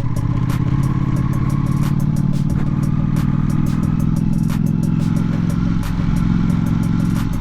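Ducati Panigale V4S's V4 engine running at low, steady revs as the bike is ridden slowly, with a faint whine that rises slightly in pitch and a rapid light clatter over it.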